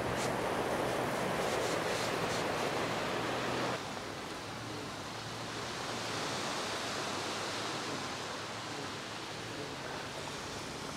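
Steady rushing noise of sea waves and wind. About four seconds in it changes abruptly to a slightly quieter, thinner rush.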